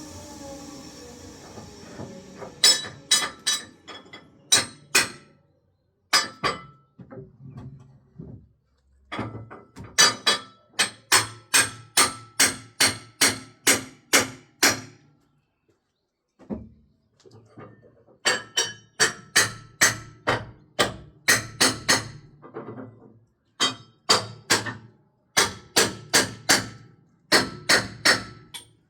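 Repeated hammer blows in runs of many strikes at about two to three a second, each strike ringing briefly, with short pauses between runs. A falling whine fades out over the first two seconds.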